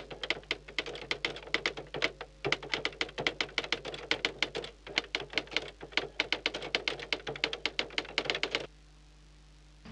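Typewriter sound effect: a rapid run of key clacks that stops abruptly about a second before the end, leaving only a faint hum.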